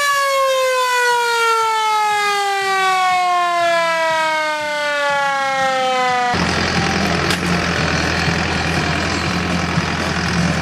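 Hand-cranked mechanical siren winding down: its wail falls steadily in pitch over about six seconds as the rotor slows. It cuts off suddenly and is replaced by a steady low hum under broad noise.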